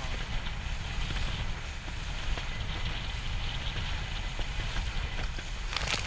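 Wind buffeting the microphone: a steady low rumble with a faint hiss above it.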